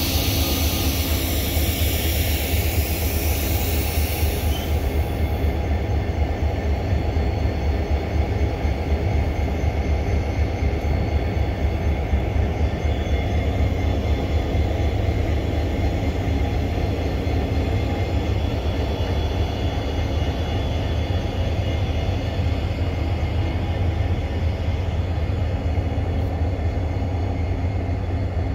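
EMD diesel-electric locomotive's engine running steadily with a deep, even hum. A high hiss sounds over it at first and dies away about five seconds in.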